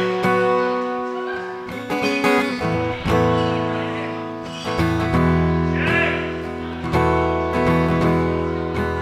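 Steel-string acoustic guitar strummed, played through a soundhole pickup: full chords struck about every one to two seconds, each left ringing and fading before the next.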